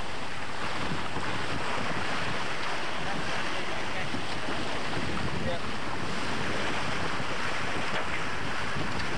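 Steady wind noise buffeting the camcorder microphone, mixed with water rushing along the hulls of a sailing catamaran under way.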